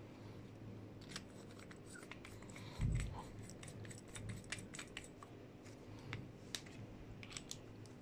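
Faint scattered clicks and light metal taps as the parts of a Cometa Lynx PCP air rifle regulator are screwed together by hand and fitted to a pressure-test gauge, with one soft thump about three seconds in.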